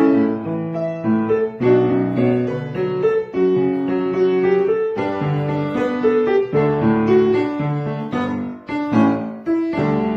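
Piano music: a melody of sustained notes over a lower accompaniment, moving in short phrases.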